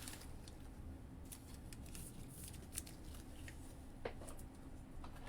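Faint scattered clicks and rustles of trading cards and plastic card holders being handled, with a slightly sharper click about four seconds in, over a low steady room hum.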